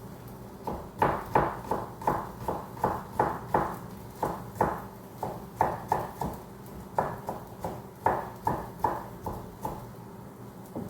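Knife chopping on a cutting board: a quick, uneven run of sharp knocks, about two to three a second, with a couple of short pauses.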